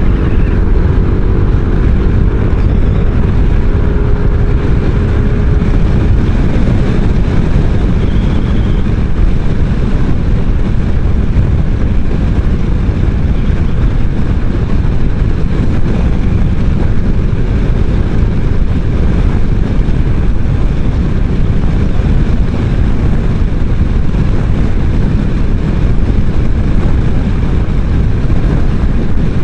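Steady, loud wind rush buffeting the microphone while riding a Kymco 500cc maxi-scooter at highway speed, heaviest in the low end. The scooter's engine and the tyres run underneath it, with a faint engine tone in the first few seconds.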